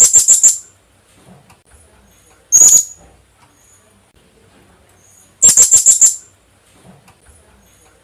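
Philippine hanging parrot (colasisi) calling in shrill, very high notes: a quick run of about five, a single note, then another run of about five and another single note.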